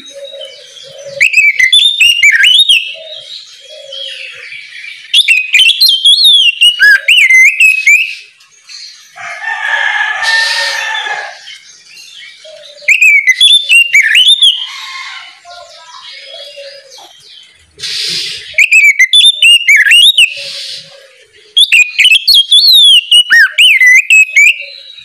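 Oriental magpie-robin singing loudly in the open, clear 'ngeplong' style: five spells of rapid, varied whistled phrases with sharp up-and-down glides, separated by short pauses. About ten seconds in there is a harsher, rasping call.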